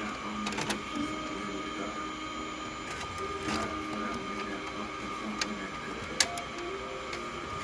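Brother printer running, a steady mechanical whir with shifting motor tones and scattered sharp clicks, the loudest about six seconds in.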